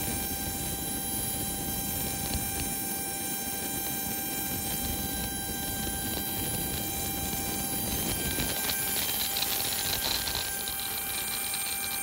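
Embraer jet's auxiliary power unit running with a steady high whine made of several held pitches, over a low rushing noise; the highest part of the whine gets louder about two thirds of the way in.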